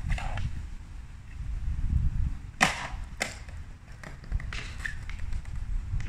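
Skateboard wheels rolling on concrete with a low rumble, and the board clacking down hard about two and a half seconds in, followed by a second smaller clack about half a second later.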